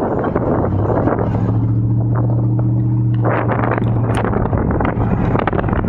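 Wind buffeting the microphone while riding on the back of a moving truck, with the truck's engine giving a steady low hum that comes in about a second in and fades near the end.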